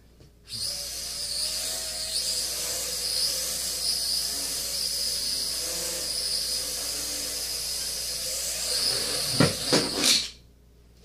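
Traxxas Alias mini quadcopter in flight, its propellers and motors giving a steady high-pitched buzz with a wavering lower hum. A few sharp knocks come near the end, then the buzz stops abruptly.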